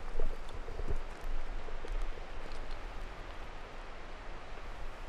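Steady outdoor hiss with rustling and a few soft thumps in the first second or so, as someone moves and kneels on dry leaf litter.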